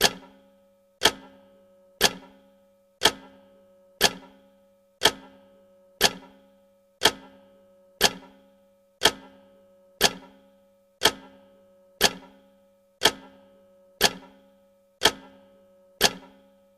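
Clock-style tick sound effect marking each second of a countdown timer: one sharp tick per second, each with a short ringing tail.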